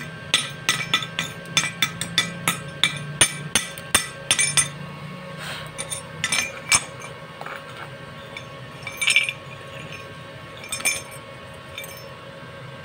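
Steel rod chipping slag (flux) off a fresh stick-weld bead on steel plate: quick sharp metallic clinks, about three a second, then slowing to a few scattered taps after about five seconds.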